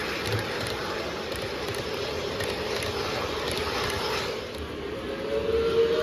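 Lionel Legacy O-gauge model train in New Haven livery running along the layout track with a steady rolling rumble. About five seconds in, its electronic horn sounds with a held multi-tone chord.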